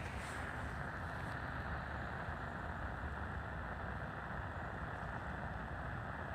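Tecsun PL-660 portable receiver giving a steady hiss of static from its speaker, tuned to a shortwave channel with no one transmitting. A little over a second in, the hiss turns duller as its higher part drops away.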